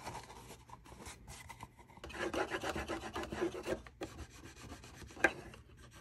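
Fingers rubbing and sliding over cardstock as a glued paper box flap is pressed and smoothed into place, with a longer stretch of rubbing about two seconds in and one sharp tap near the end.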